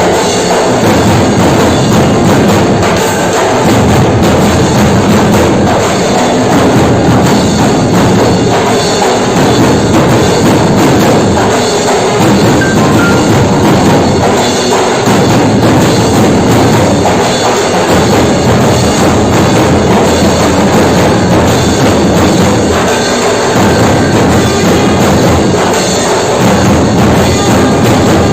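Loud, continuous music with drums and percussion keeping a steady beat.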